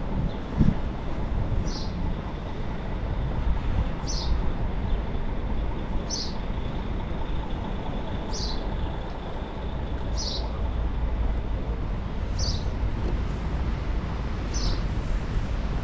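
A steady low outdoor rumble, with a bird repeating a short, high chirp that falls in pitch, about once every two seconds.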